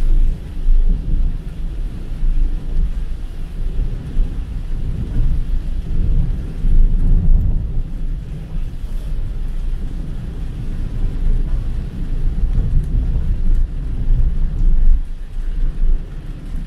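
Car driving through heavy rain, heard from inside the cabin: a dense low rumble of tyres on the wet road and rain on the car body, swelling and easing unevenly.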